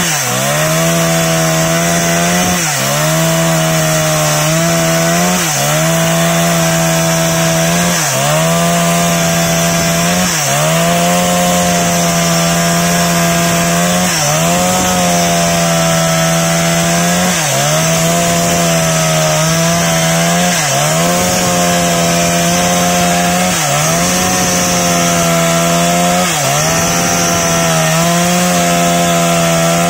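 Husqvarna 365 Special two-stroke chainsaw at full throttle, ripping lengthwise through a teak log. About every three seconds its engine pitch dips briefly and then recovers.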